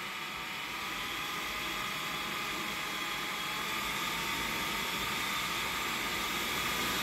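Large high-power centrifugal blower fan running and blowing air, slowly speeding up as its PWM speed controller is turned up: a steady rush of air with a faint motor whine that rises slightly in pitch, growing gradually louder.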